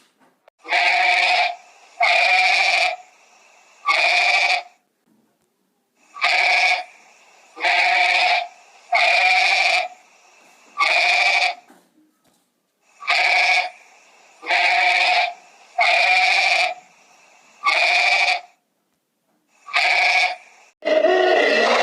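Farm animal bleating: about a dozen short calls, each one steady in pitch and much like the last, repeated about every second and a half with short pauses between.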